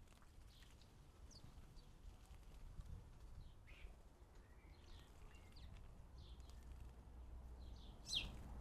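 Faint garden birds chirping: short, scattered high calls over a steady low background rumble, with one louder chirp near the end.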